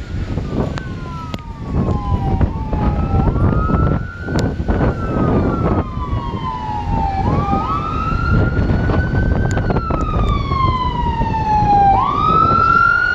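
Wail siren of an approaching fire rescue truck, sweeping up quickly and then falling slowly, about every four to five seconds, and getting louder toward the end, over a low rumble of traffic.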